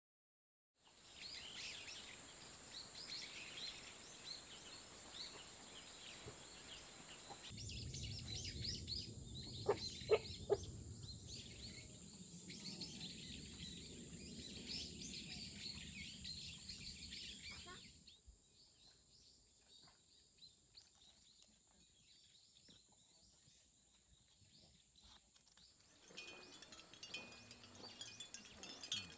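Quiet outdoor ambience: birds chirping over a steady high thin tone for the first half or so. Near the end, a mother-of-pearl shell wind chime clinks lightly and quickly.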